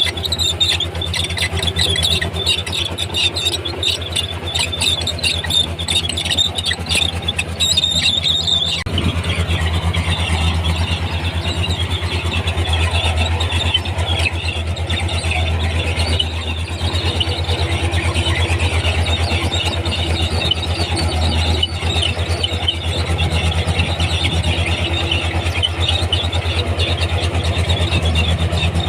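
Komatsu D31P crawler bulldozer working: its diesel engine running steadily under the squeal and clank of its steel tracks. The track squeal and clatter are busiest in the first nine seconds, and the sound changes abruptly about nine seconds in.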